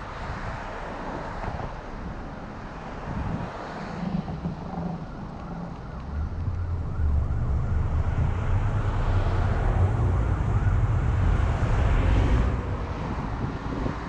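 Car driving on a city street: steady road and engine rumble mixed with wind buffeting the microphone, growing louder about six seconds in.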